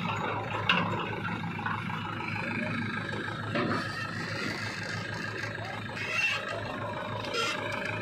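Diesel engine of a JCB 3DX backhoe loader running steadily under load as the backhoe digs and loads soil.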